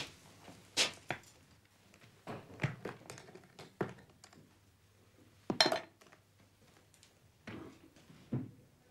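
A leather Gladstone bag being handled and opened: a series of soft knocks and sharp clicks from its clasp and contents, the loudest a little past halfway.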